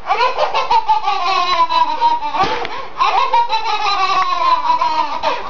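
Babies laughing hard in high-pitched belly laughs: two long bouts, each sliding down in pitch, with a short break about halfway.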